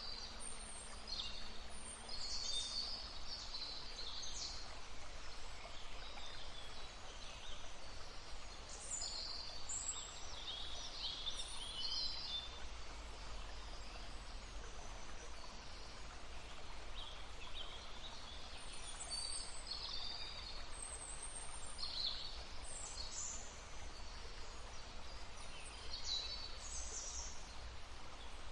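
Several songbirds singing and calling in short, overlapping chirpy phrases over the steady rush of a small stream.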